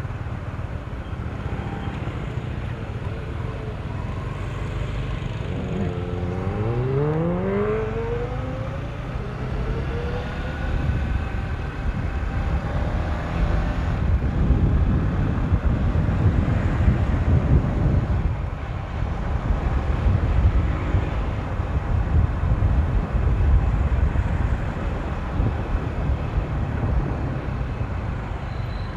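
Motorcycle engine pulling hard, its pitch rising and then levelling off, under heavy wind rumble on the microphone at speed.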